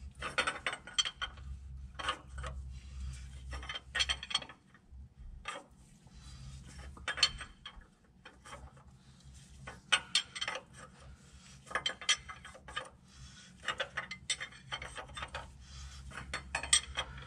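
Ratchet wrench clicking in short, irregular bursts as it turns the forcing screw of a rear main seal installer, pressing a new rear main seal onto the crankshaft. The seal is going in smoothly.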